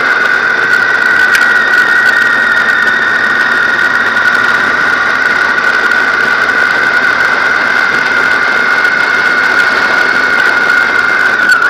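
Riding noise from a moving BMW R1200 GS motorcycle, dominated by a steady high-pitched whistle over wind and engine noise. The whistle dips in pitch briefly near the end.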